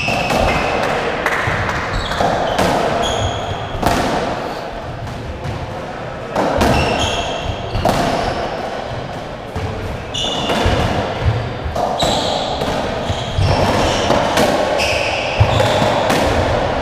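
Racketball play on a squash court: repeated sharp smacks of the ball off rackets and walls at irregular intervals, mixed with short high squeaks of court shoes on the wooden floor.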